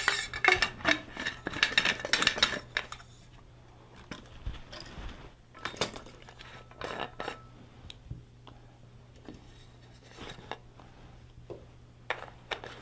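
Metal parts of an Albion B-Line manual caulking gun clicking and clattering as it is handled and set up for a 10-ounce cartridge. There is a dense rattle for the first few seconds, then scattered single clicks and short clatters.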